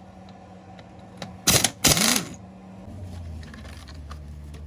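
Two loud metallic clanks in quick succession about a second and a half in, from a 17 mm wrench working a motorcycle engine's oil drain plug, over a steady low hum.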